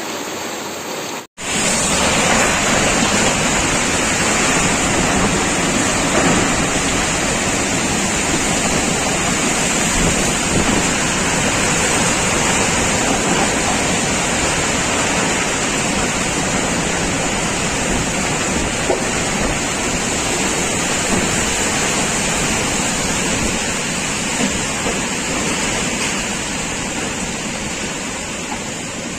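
Waterfall: steady, loud rushing of falling water, briefly cut off about a second in.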